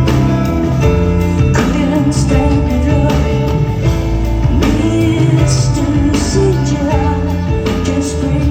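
Live band music: a woman singing over keyboards, bass and drums, with regular drum hits and sustained low bass notes.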